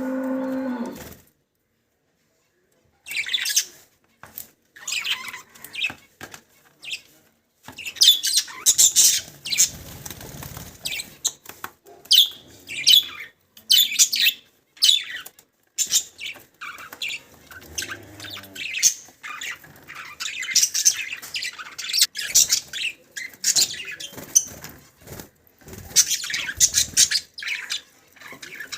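Budgerigars chattering: dense, rapid high chirps and warbling trills in quick overlapping strokes, starting about three seconds in after a brief silence. In the first second there is a short low call.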